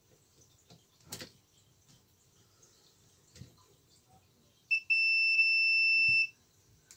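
Multimeter continuity buzzer beeping: a short blip, then a steady high-pitched beep of about a second and a half as the test probes close the circuit through a conductor of the hammer drill's mains cable, showing that the wire has continuity. A light knock about a second in.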